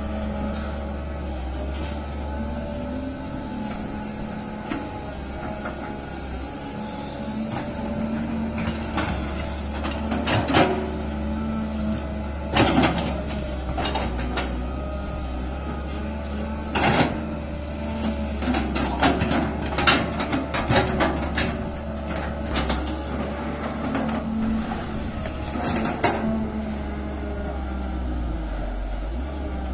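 Caterpillar 320C excavator's diesel engine running steadily under hydraulic load while its bucket digs and trims a dirt canal bank. Sharp clunks and scrapes of the bucket against soil and stones come now and then, most of them through the middle stretch.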